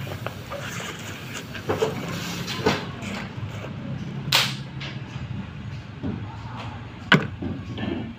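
Scattered metallic clicks and knocks from hand tools as a T-handle socket wrench is worked on the diesel engine's crankshaft pulley bolt. There is a short hiss about four seconds in and a sharp click near the end, over a steady low hum.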